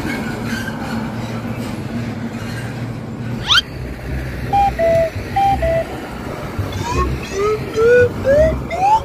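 Steady hum of a vehicle engine. About three and a half seconds in comes a quick rising whistle. Then come short musical horn notes, typical of a bus telolet horn: two pairs of falling two-note calls, then a run of short notes climbing step by step.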